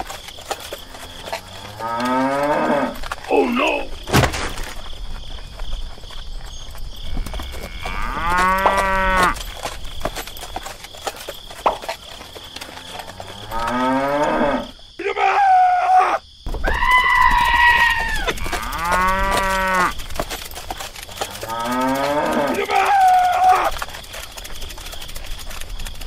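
Cattle mooing: several separate moos a few seconds apart, each about a second long, some rising in pitch.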